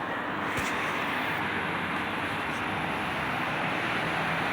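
Steady running noise from a Dodge Charger with a 383 big-block V8 under way on the road, with a single low thump about half a second in.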